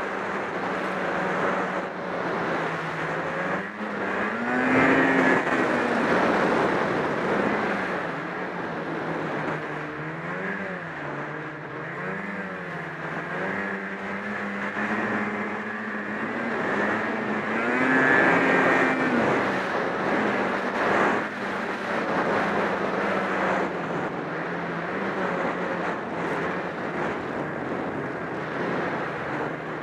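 Ski-Doo snowmobile's two-stroke 800 H.O. engine under way, its pitch rising and falling with the throttle. It climbs sharply about five seconds in and again about eighteen seconds in, and wavers up and down in between.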